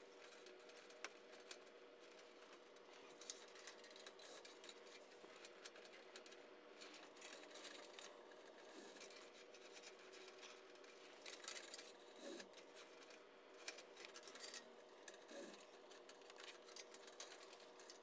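Near silence with faint rustling and light ticks of bundled network cables being pulled through and arranged at a wall-mounted rack, over a faint steady hum.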